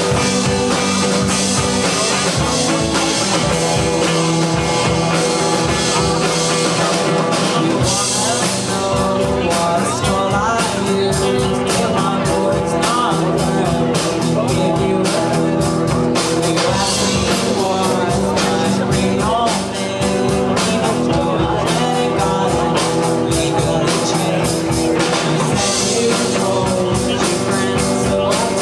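Live rock band playing: held guitar chords, with a steady drum beat coming in strongly about eight seconds in.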